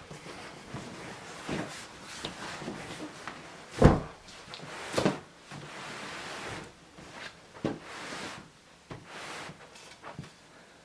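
A large cardboard box being handled: a series of knocks and thumps with rustling and scraping of cardboard between them. The loudest thump comes about four seconds in and another about a second later.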